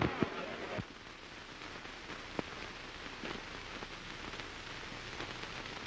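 Steady hiss and crackle of an old film soundtrack, with a few faint clicks, two within the first second and one about two and a half seconds in.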